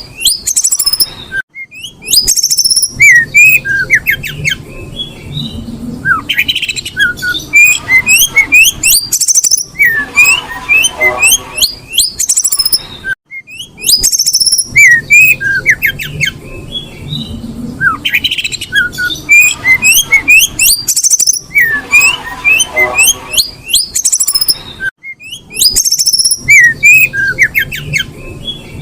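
Female oriental magpie-robin (kacer) in breeding condition calling: rapid runs of short, squeaky rising chirps in phrases a few seconds long, with brief pauses between them.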